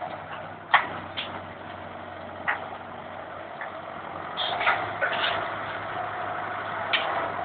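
John Deere 5820 tractor's diesel engine running steadily while it works a rear-mounted forestry cable winch, with a loud sharp knock about a second in and several more through the clip.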